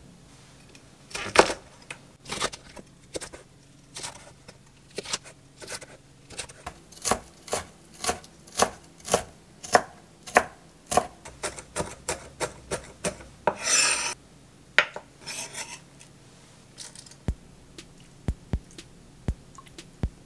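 Knife mincing red and green chili peppers on an end-grain wooden cutting board: a steady run of chopping strikes, about two to three a second, then a longer scrape of the blade across the board, and a few scattered knocks near the end.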